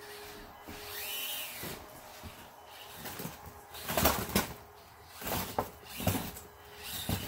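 Axial SCX24 1:24-scale RC crawler's tyres and chassis knocking and scraping on styrofoam ramps as it crawls down them, with a cluster of sharp knocks about four seconds in and a few more near the end.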